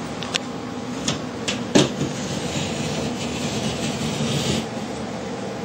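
Drywall being cut open by hand: a few sharp knocks as the tool is driven into the board, the loudest about two seconds in, then a stretch of rasping as it cuts, over a steady background hum.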